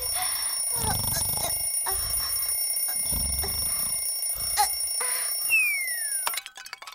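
Cartoon bedside alarm clock ringing steadily. Near the end a falling whistle and a brief clatter sound as it is knocked to the floor and breaks, and the ringing cuts off.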